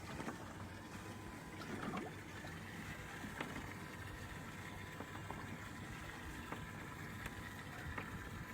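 Water lapping and gurgling against an aluminum boat hull, with a few light clicks and taps now and then.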